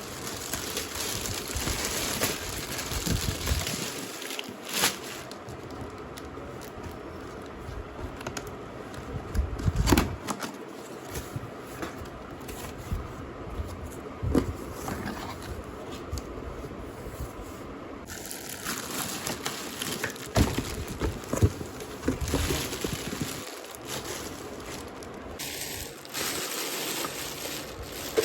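Cardboard box and plastic packaging being opened and handled: irregular crinkling and rustling with occasional sharp knocks.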